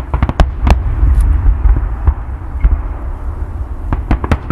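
Fireworks going off: a quick cluster of sharp cracks in the first second and another burst of cracks near the end, over a constant low rumble of booming shells.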